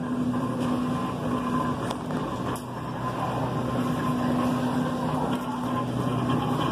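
Wheels of a cart rolling and rattling over a hard store floor, a steady rumble with a low hum underneath.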